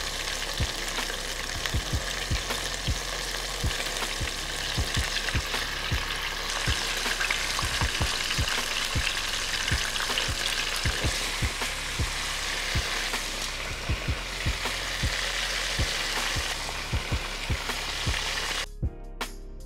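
Breaded chicken tenders deep-frying in hot oil: a dense, steady sizzle with frequent low bubbling pops. It cuts off suddenly near the end.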